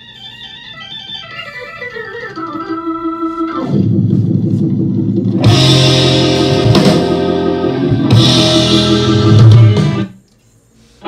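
Music from a CD playing through a Gradiente STR-1050 receiver on its auxiliary input, with the volume being turned up. It grows from quiet to loud over the first four seconds, beginning with a falling run of notes, then plays loud and full before breaking off suddenly about ten seconds in.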